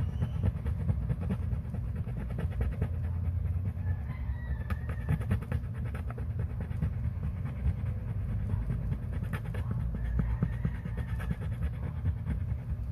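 A wooden stick scrubbing and scraping grime from a wet coin, a continuous rapid scratchy rubbing made of many small ticks.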